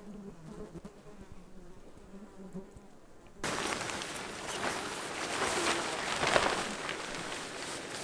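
Flies buzzing faintly at first, then from about three and a half seconds in, loud rustling and crackling of tent fabric being shaken out and spread on the grass.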